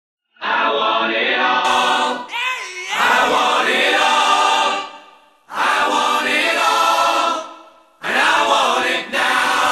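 A choir singing in three long phrases with short breaks between them, starting suddenly out of silence.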